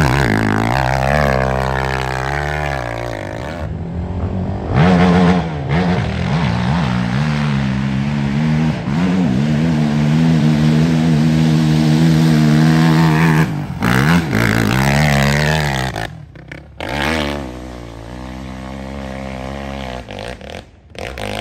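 Sport ATV engines revving hard at full throttle while climbing a steep dirt hill. The pitch rises and falls with the throttle and gear changes, and holds high for a few seconds near the middle. Several runs follow one another with abrupt cuts between them.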